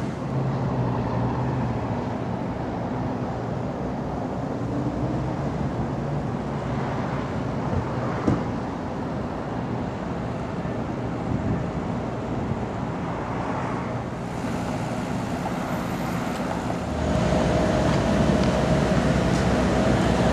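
Steady city-street traffic noise with a vehicle engine running. A single sharp click comes about 8 seconds in, and the sound grows louder near the end as a vehicle with a steady engine tone comes close.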